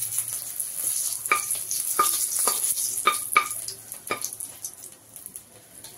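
Green chillies sizzling in hot oil in a kadai, while a metal ladle stirs them with about six sharp clinks against the pan. The sizzle dies down about two-thirds of the way through.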